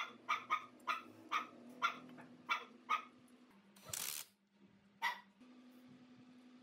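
A dog barking repeatedly, about two barks a second, for the first three seconds. About four seconds in, a cordless drill/driver runs in a brief burst on the motor's terminal-box nuts. One more short bark or knock follows.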